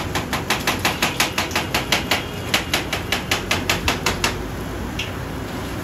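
Large kitchen knife chopping vegetables on a plastic cutting board: fast, even knocks, about five or six a second, that stop about four seconds in.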